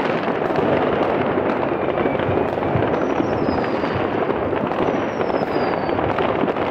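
Massed New Year's fireworks and firecrackers going off all around in a dense, continuous crackle of pops and bangs. Twice in the second half a high whistle falls slightly in pitch.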